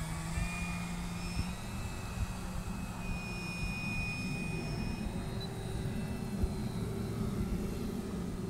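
Radio-controlled 57-inch 3D Hobby Shack Extra 330SC aerobatic model plane in flight, its motor and propeller making a steady drone whose pitch shifts a little as the plane moves.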